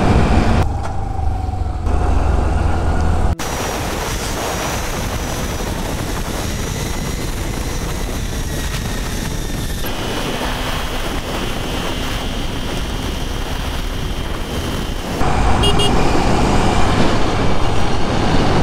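Wind and road noise of a scooter being ridden, heard from the rider's camera, with heavy low wind rumble on the microphone. The sound changes abruptly about three seconds in and again near the end, going quieter and steadier in between.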